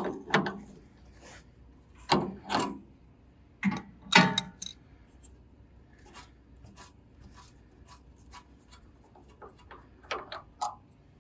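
Hands working the generator's original brass coolant level probe and its plug-on wire connector. A run of sharp clicks and scraping knocks, the loudest in the first four or five seconds, then faint ticks and two more knocks near the end.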